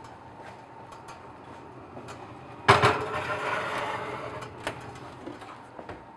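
Wall oven door pulled open with a sudden clunk, then the metal oven rack rattling as an earthenware baking pan is slid onto it, followed by a few light knocks.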